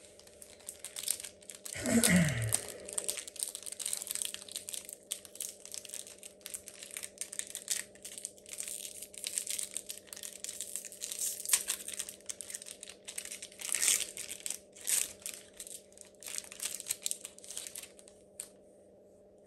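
Foil booster pack wrapper crinkling and being torn open, with cards rustling as they are handled; a short falling sound stands out about two seconds in.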